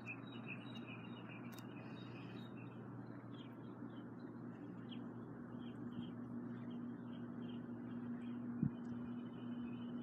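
Faint outdoor ambience: short high chirps repeating about twice a second over a steady low hum, with a single sharp click near the end.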